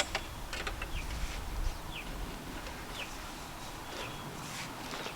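A bird calling: short falling notes repeated about once a second. A few light clicks of handling come in the first second.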